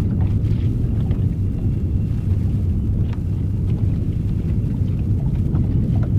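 Boat's outboard motor running at a steady low rumble, with a few faint ticks over it.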